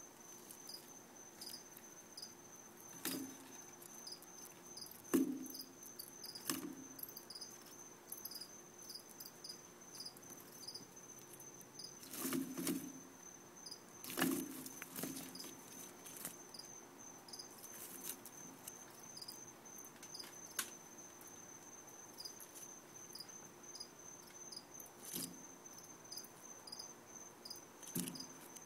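Crickets chirping: a steady high trill with short chirps repeating about twice a second. Now and then a soft knock or rustle breaks in, the loudest about five and fourteen seconds in.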